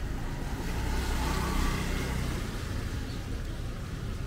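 A motor vehicle passing close by, its low engine noise swelling over about a second and then fading away.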